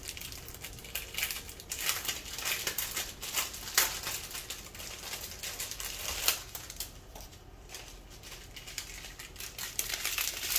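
Small plastic bags of diamond painting drills crinkling as they are handled, with scattered light clicks.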